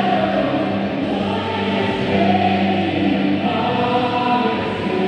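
A group of voices singing with musical accompaniment, holding long sustained notes.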